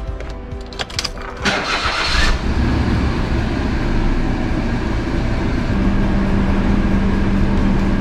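A car engine is started with the key: a few clicks, a short burst of cranking as it catches about a second and a half in, then it settles into a steady idle. A steady low hum joins the engine about six seconds in.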